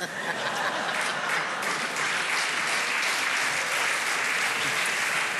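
A large audience applauding in response to a joke's punchline, a dense, steady clapping that swells after the first second or so.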